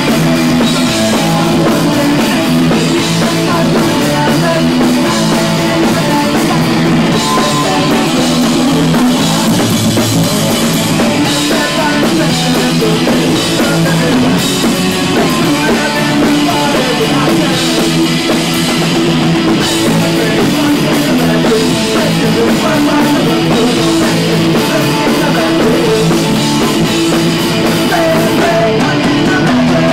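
Punk rock band playing live: electric guitars and drum kit, with a singer on the microphone, loud and without a break.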